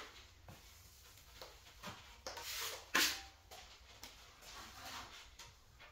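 Steel putty knife spreading a thick coat of wet drywall plaster across a ceiling: a series of scraping strokes, the loudest about three seconds in.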